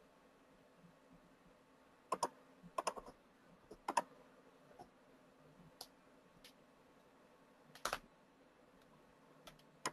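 A few sharp computer clicks: a small cluster about two to four seconds in, then single clicks near eight and ten seconds, over a faint steady hum.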